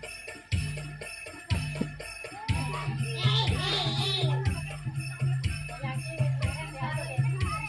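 Remixed Bantengan dance music with a steady heavy bass beat and constant jingling bells. A wavering, warbling high sound rises over it about halfway through.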